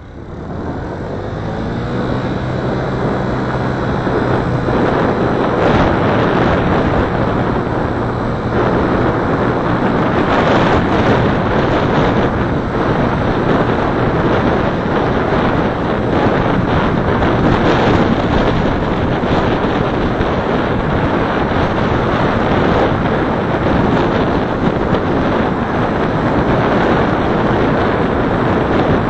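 Car driving on a city street, heard from a dashcam inside the cabin: steady road and tyre noise that builds over the first few seconds as the car gets up to speed, with a low engine hum under it for the first several seconds.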